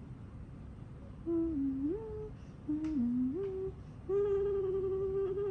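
A woman humming a short tune: about a second in, two brief phrases of two notes each, each stepping up in pitch, then one long held note.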